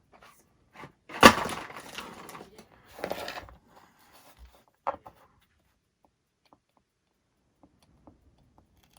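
A knife cutting and trimming tubing on a workbench: a sharp crack about a second in, trailing off into scraping, a second cutting scrape around three seconds, and a short click near five seconds.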